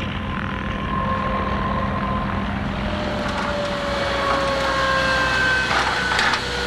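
Gloster Meteor's turbojet engines running with a steady rush and whine, the pitch slowly falling over the second half as the engines wind down. A short rattle comes near the end.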